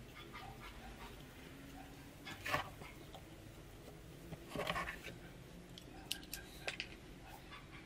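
Handling noises from work on a balsa wing: two short scraping rustles, the second a little longer, then a few small clicks, over a faint steady hum.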